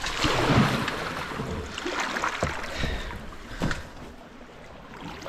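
Kayak running fast river rapids: rushing, splashing water, loudest in the first second or so and easing off after the middle, with a few sharp knocks.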